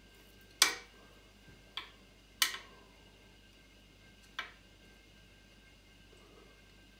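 Four sharp clicks from tools and parts being handled while the motorcycle's cooling system is reassembled. The first and third are the loudest, and each has a short ringing tail.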